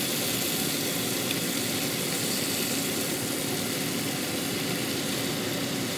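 Melted butter sizzling in a frying pan as frozen mixed vegetables are poured in, over a steady low hum.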